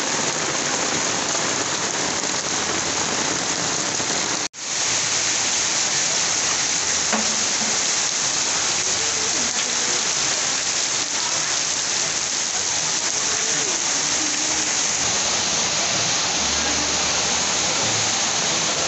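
Heavy rain pouring steadily on wet paving and garden plants, a dense even hiss, broken once by a split-second gap about four and a half seconds in.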